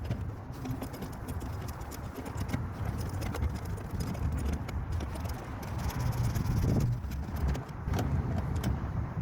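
Scattered light clicks and clinks of tools and small parts being handled, over a steady low rumble.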